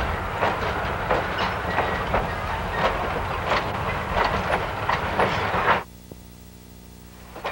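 Train rolling along with a steady rumble and wheels clacking over rail joints, about twice a second. About six seconds in the sound cuts off suddenly, leaving only a faint steady hum.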